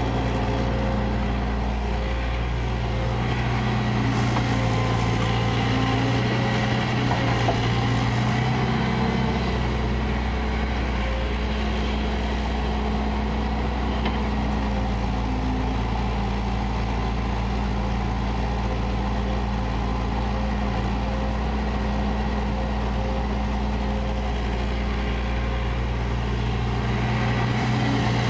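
Kobelco crawler excavator's diesel engine running steadily under work while digging. Its note shifts slightly about ten seconds in and again near the end.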